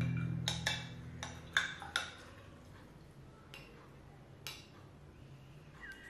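A paintbrush clinking against a glass jar of rinse water: about five sharp clinks in the first two seconds, then two fainter ones.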